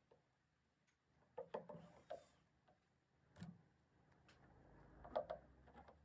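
Near silence with a few faint, scattered clicks and light knocks.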